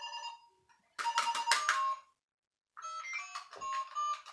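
Toy phone playing electronic beeping tones at changing pitches as its buttons are pressed, in three short bursts with pauses between.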